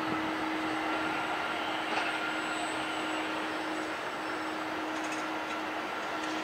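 Airbus A321 airliner's jet engines at idle thrust while taxiing: a steady hiss with a steady low hum.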